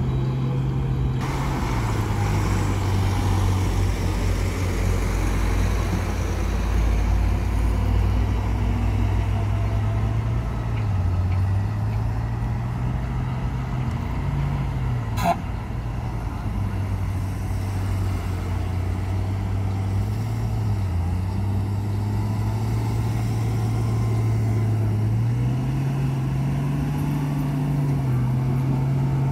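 Diesel engines of heavy dump trucks running, the engine speed rising and falling several times. One sharp click about halfway through.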